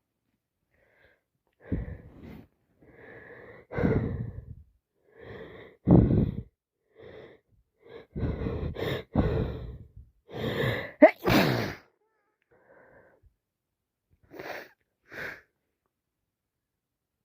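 A woman with a heavy cold turned sinusitis sneezing and breathing through congestion: a string of short, wheezy bursts that grow louder, the loudest about eleven seconds in, then two short ones near the end.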